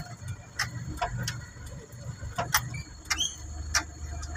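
Truck engine rumbling low from inside the cab as it crawls over a rough dirt track, with irregular clicks and rattles from the cab jolting over the ruts and a brief squeak about three seconds in.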